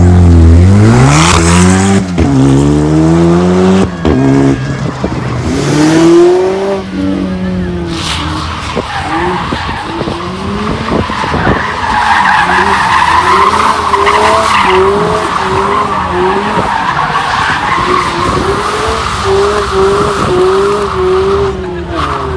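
A car engine revving hard, its pitch climbing steeply. Then a long tyre squeal from a drift or burnout, with the engine revs swelling up and down as the throttle is worked. The squeal fades out near the end.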